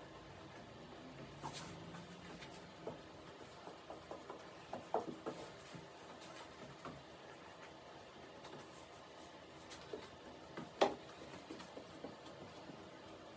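Faint scattered taps, scratches and rustles of hands working fiberglass cloth and plastic film against a wooden laminating jig, with one sharper tap near the end.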